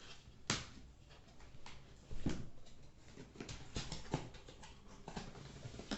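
Hands opening a package: scattered clicks and rustles of packaging being handled, with a sharp knock about half a second in and a heavier thud a little after two seconds.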